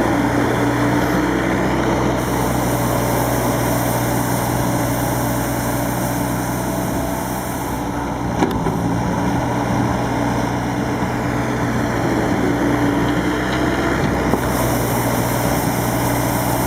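Bobcat skid-steer loader running steadily with a brush-and-vacuum sweeper attachment picking up sand: an even engine drone under a rushing hiss that swells and eases. A short knock about eight and a half seconds in.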